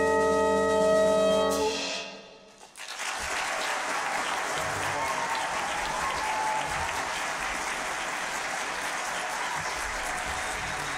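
A saxophone quartet holds a final chord over bass, which cuts off a little under two seconds in. After a brief pause, the audience applauds steadily.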